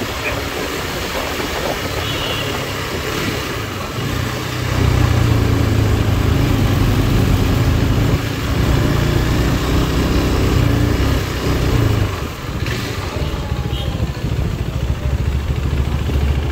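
KTM RC 390's single-cylinder engine running as the motorcycle rides in traffic. It gets louder from about four seconds in, eases off around twelve seconds and picks up again near the end.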